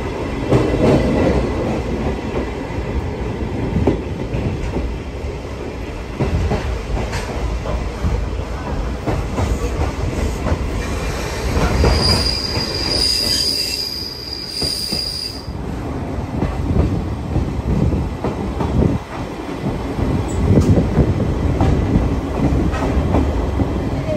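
Steam-hauled vintage passenger coach heard from inside, its wheels running and rumbling on the rails. About halfway through, a high wheel squeal rings out for three to four seconds and then stops.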